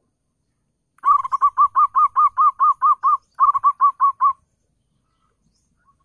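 Zebra dove (perkutut) cooing: a fast run of short, arched notes, about five a second, starting about a second in, with a brief break partway and stopping after about three and a half seconds.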